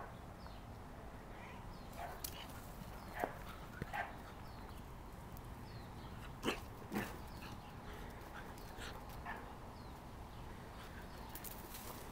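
Boxer puppy giving a few short yips and whimpers, the two loudest close together about six and a half seconds in.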